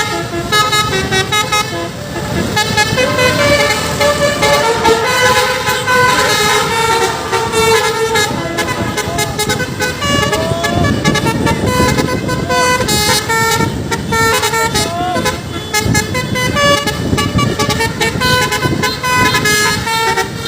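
Telolet basuri, a multi-tone bus horn, playing a melody: a steady string of tuned horn notes stepping up and down in pitch, over a noisy low rumble.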